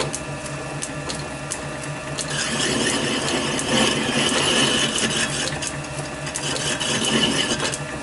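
Small lathe running with a steady motor hum; about two seconds in a boring bar starts cutting the steel sheet-metal part held in the four-jaw chuck, a louder scraping cut with a thin high squeal, which eases off near the end.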